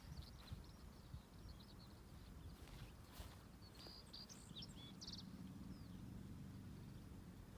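Faint birds chirping in short high calls, scattered through the first half and clustered about four to five seconds in, over a quiet low outdoor hum.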